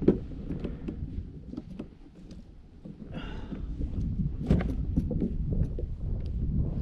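Gear being handled in an Old Town Topwater PDL plastic kayak: scattered knocks and clicks against the hull over a low wind rumble on the microphone, with a brief higher, rough sound about three seconds in.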